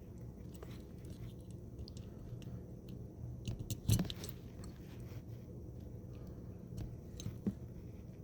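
Small plastic clicks and rustles from handling and plugging in wiring connectors on an RC crawler's chassis, with a louder snap of clicks about four seconds in and another sharp click near the end.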